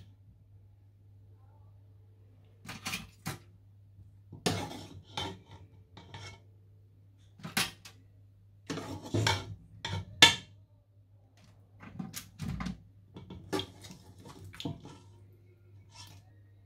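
A metal utensil clinking and scraping against a wire rack and baking tray as chicken pieces are turned and arranged, in irregular clusters of clatter. A faint low hum runs underneath.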